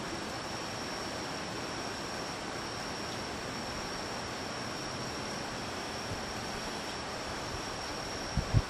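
Steady night ambience of a high, even insect chorus over a broad hiss. There are a couple of low thumps near the end.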